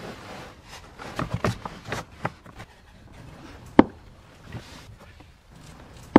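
An all-weather floor mat being shifted into a car footwell, with scuffing and light knocks. Then come two sharp clicks, about two and a half seconds apart, as it is pressed down onto the factory floor-mat anchor clips.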